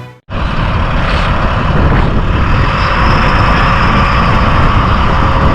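Steady rumble and road noise of a moving motor vehicle. It cuts in about a quarter second in, after a short gap, and holds level throughout.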